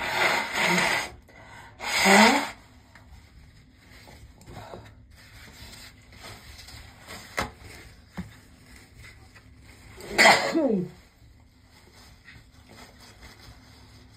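A woman sneezing loudly three times: two sneezes in quick succession at the start and a third about ten seconds in, the later ones ending with the voice dropping in pitch.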